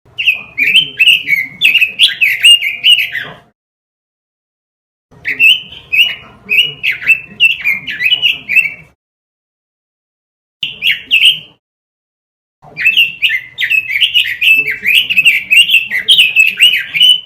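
Red-billed leiothrix (Pekin robin) singing rapid, warbling phrases in four bursts, each separated by a second or two of silence; the third burst is short.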